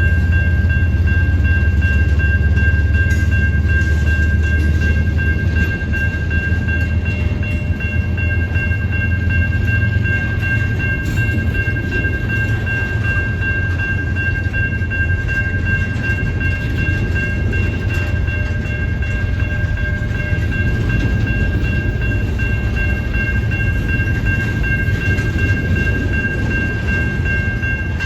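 Intermodal freight cars rolling past on the rails: a loud, steady low rumble that eases slightly after the first few seconds, with a constant high-pitched squeal held over it.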